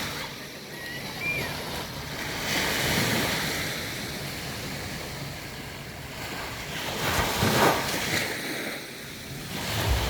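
Waves breaking and washing up a beach, surging twice, about three seconds in and again around seven to eight seconds, with wind buffeting the microphone.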